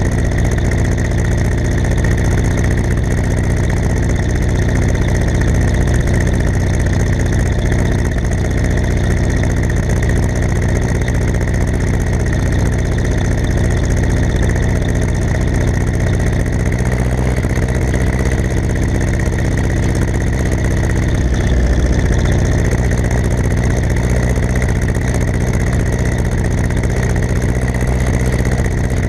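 Ursus C-360 tractor's four-cylinder diesel engine running steadily. Its note changes slightly about halfway through.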